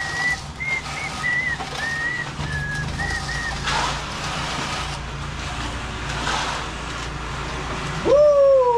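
A bird chirping a quick run of short high notes for the first few seconds, over a steady low hum. Near the end, a loud tone rises sharply, then slides down for about a second.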